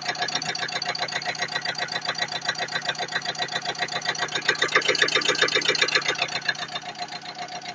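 Engine idling with a steady, rhythmic ticking knock, which the owner suspects comes from a fuel injector.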